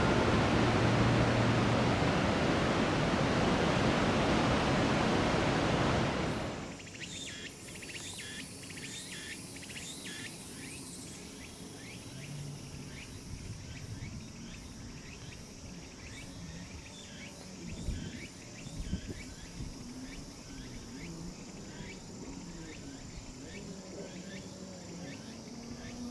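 A loud, steady rush of surf that cuts off about six seconds in. After it, cicadas call in quick, repeated high chirps, with faint far-off voices underneath.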